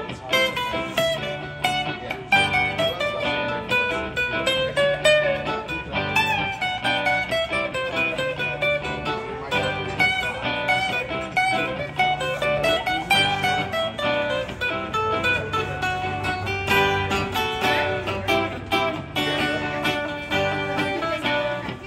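Solo acoustic guitar played live in an instrumental passage: a picked melody over repeating bass notes, with no singing.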